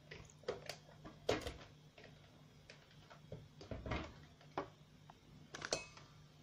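Scattered light knocks and clicks of a plastic electric blender being moved and set up on a countertop, its power cord dragged, over a faint steady low hum.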